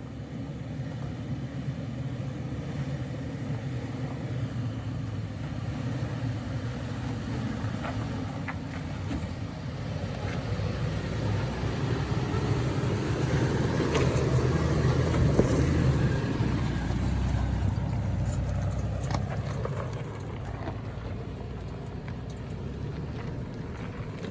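2018 Toyota 4Runner TRD Off-Road's 4.0-litre V6 running as it drives slowly over a rough dirt trail, a steady low rumble that grows louder about halfway through and then eases off, with a few sharp clicks.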